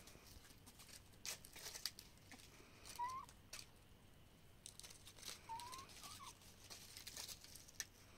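Hens foraging on dry dirt and dead leaves: scattered faint clicks and rustles of pecking and scratching, with a few soft, short rising hen calls in the middle.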